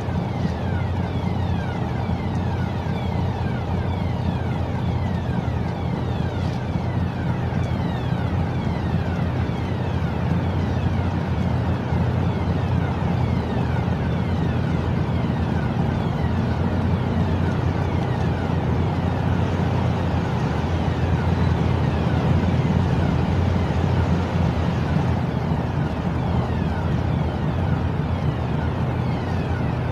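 Steady low drone of a large diesel engine running at a constant speed. Faint high tones keep falling in pitch above it.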